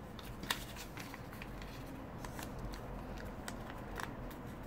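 Square of origami paper being folded and pressed by hand: soft paper rustling with small crisp crackles as creases are made, the sharpest about half a second in and another near four seconds.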